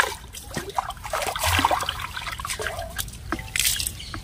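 Water poured from a steel tumbler into a steel pot and swished about by a hand inside the pot: two bursts of pouring and splashing, with a few short knocks between them.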